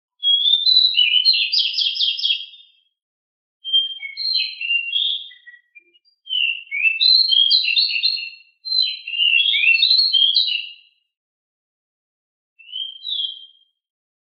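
A decu songbird sings fast, rolling phrases of rapid, jumbled high notes, five loud phrases of one to three seconds each, separated by short pauses.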